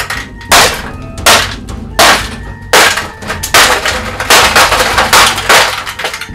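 Repeated hard blows smashing copper scrap, about ten sharp strikes, one every half to three-quarters of a second.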